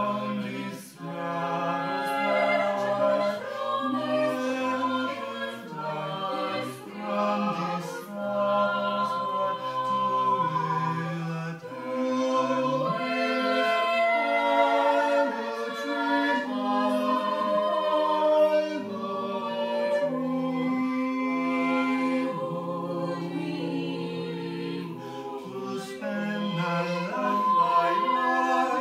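A small mixed vocal ensemble of five, three women and two men, singing a cappella in several parts, holding sustained chords that change together.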